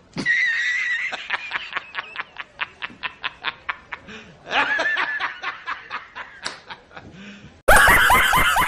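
A person laughing in a long run of short, wheezy ha's, about four a second, with a high squeal at the start. Near the end it gives way to a much louder burst of sound.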